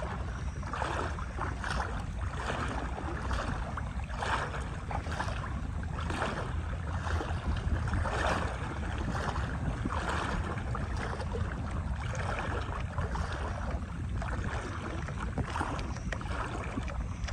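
Wading footsteps in shallow water, a soft splash about once a second, over a steady low rumble of wind on the microphone.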